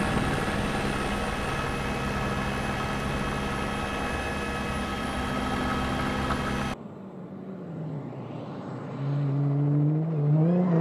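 Steady helicopter rotor and turbine noise with a constant whine, cutting off abruptly about seven seconds in. After that a Toyota Hilux rally truck comes closer, its engine rising in pitch and growing louder as it accelerates near the end.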